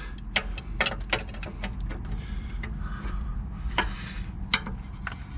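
Spanner being worked round a large 24 mm nut on a car's lower suspension arm bolt, making irregular metallic clicks and clinks as it is turned and repositioned, about two or three a second at first and sparser later.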